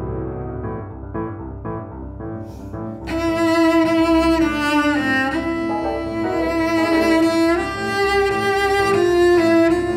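Grand piano playing soft repeated chords alone. About three seconds in, a cello comes in with a long bowed melody over the piano, and the music grows louder.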